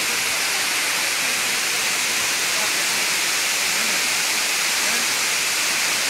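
Steady rushing hiss of falling water from a waterfall, unbroken and even in level.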